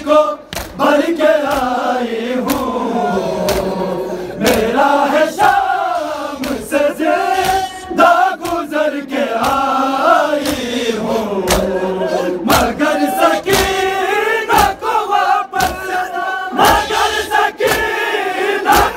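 A crowd of men chanting a Shia noha (mourning lament) together, with sharp irregular slaps of hands striking bare chests in matam.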